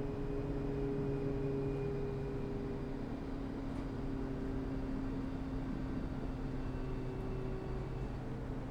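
Interior of a moving passenger train: a steady low running rumble with a few held motor tones, the highest drifting slowly lower.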